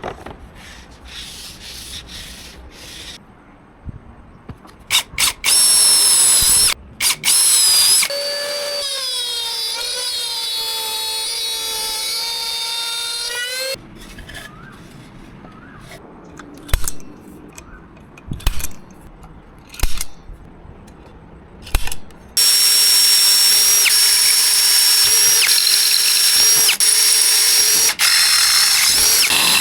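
Power tool motor whirring in several short bursts. Then comes a steady run of about six seconds whose pitch sags slightly under load. After some clicks and brief spurts, a loud, steady, high-pitched run lasts through the last several seconds.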